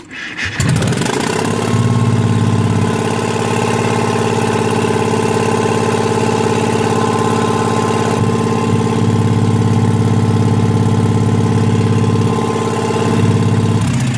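A 4 kW Onan generator's engine starts. It catches about half a second in, climbs in pitch and settles within a second into a steady, even run at governed speed.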